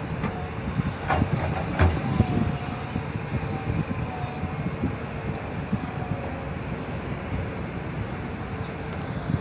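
Heavy diesel earthmoving machinery running steadily, with irregular clanks and rattles and two sharper knocks about a second and two seconds in.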